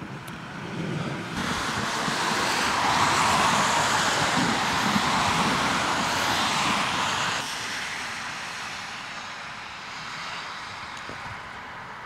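A rushing, hissing outdoor noise that swells about a second in, holds for several seconds and drops back to a lower hiss after about seven seconds.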